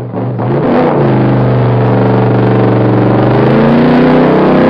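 A loud, steady engine-like drone with a low hum, shifting a little higher in pitch near the end.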